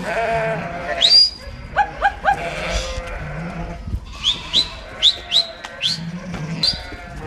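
Sheep and lambs bleating, several animals calling over one another, with a run of short, high, rising chirps repeating in the second half.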